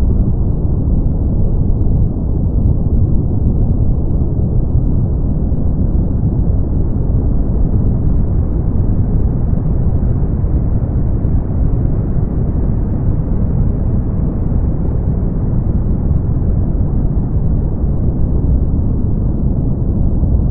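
Synthetic brown noise: a steady, deep, even hiss, strongest in the bass and dull at the top, brightening very slightly midway.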